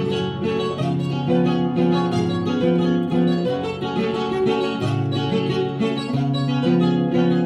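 Acoustic guitar playing a plucked instrumental interlude between sung verses of an Argentine folk copla, with a run of changing notes and no voice.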